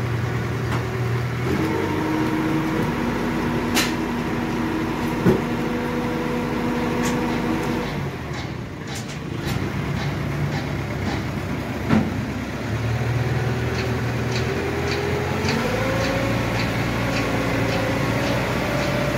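The engine of a small truck-mounted hydraulic crane revs up to drive the crane while it hoists a truck engine on a chain. It drops back to idle about halfway through, then revs up again near the end. A few sharp metallic knocks from the chain and load are heard along the way.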